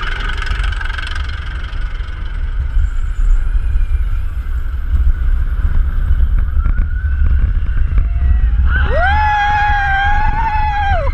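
Roller coaster ride heard from an onboard camera: a heavy, steady rumble of the train and wind on the microphone. About two thirds of the way in, a rider lets out one long, held scream that drops away at the end.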